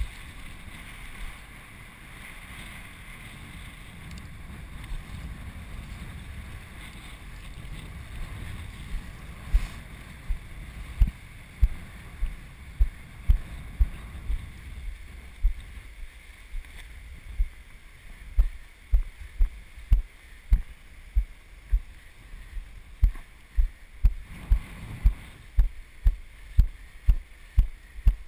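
Wind rushing over a body-worn action-camera microphone. From about eight seconds in come regular low thuds of footsteps, about two a second, as the kitesurfer walks up the kite lines across wet sand and shallow water.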